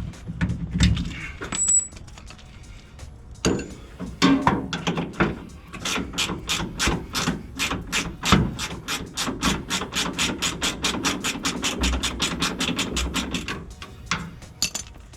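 Hand ratchet wrench clicking in a fast, even run, about five clicks a second, working a shock mounting nut. A few metal knocks and clanks of tools come before it.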